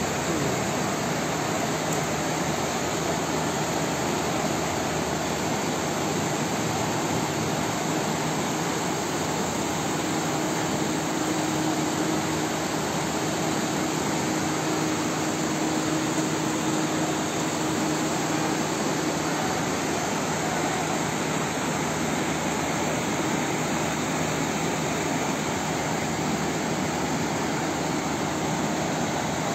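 Floodwater rushing through a street as a steady, unbroken noise, with a faint steady hum beneath it.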